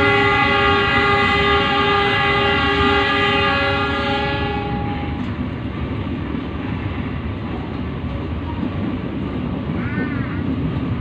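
Passenger train's horn sounding one long, steady blast for about four and a half seconds, heard from inside a moving carriage, then the steady rumble of the train running on the rails.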